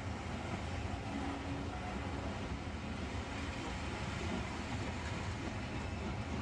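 Maroon railway passenger coaches rolling past on the track, a steady running noise of wheels and bogies on the rails.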